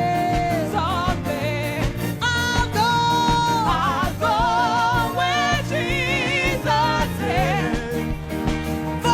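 Gospel music: a singer holding long, wavering notes with heavy vibrato over steady band accompaniment with a beat, in an old-time church style.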